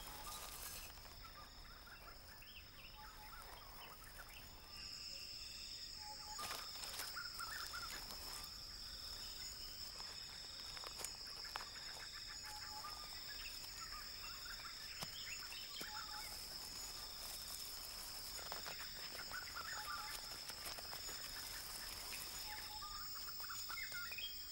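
Tropical forest ambience: a steady high insect drone that comes in about five seconds in, a short pulsing call repeating about once a second, and scattered bird calls.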